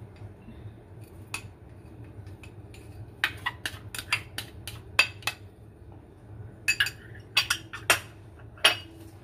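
Sharp clinks of ceramic and glass dishware: a small ceramic bowl tapped against a glass mixing bowl to knock out chopped celery. The taps come in two bursts of rapid clinking, one about three seconds in and another near the end.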